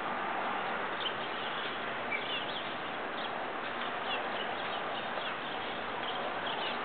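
Steady background hiss with short, scattered bird chirps every second or so.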